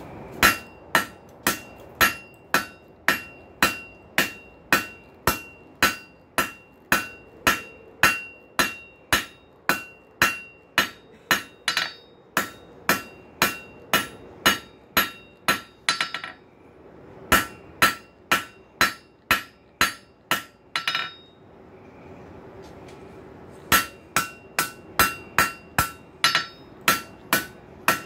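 Blacksmith's hand hammer striking a red-hot steel rail spike on an anvil in a steady rhythm of about two to three blows a second, each blow leaving a ringing note from the anvil. The hammering stops briefly a little past halfway and again for a couple of seconds about three quarters through, then resumes.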